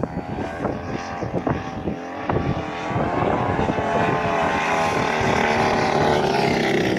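A motor's steady drone with several pitches, coming in about three seconds in and getting louder, after a few light knocks.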